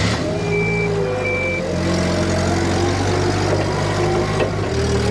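Tow vehicle's engine running steadily at low speed while pulling a car on a rope. Two short high beeps sound in the first second and a half.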